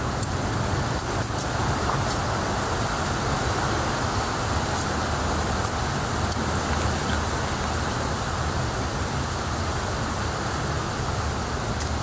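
Steady rushing background noise with a low rumble underneath, broken by a few faint clicks.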